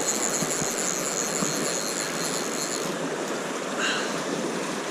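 River water rushing steadily over riffles. A high, steady buzz stops suddenly about three seconds in, and a brief chirp follows near the end.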